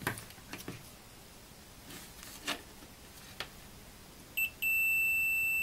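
RadioShack digital multimeter's continuity beeper. A few light clicks of the test probes are followed, about four and a half seconds in, by a brief chirp and then a steady high beep as the probes bridge the fuse. The beep shows continuity: the bus class G fuse is good.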